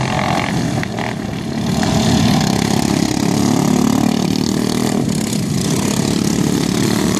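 Engines of several racing ride-on lawn mowers running hard as they lap past, a dense, steady engine drone that swells about two seconds in.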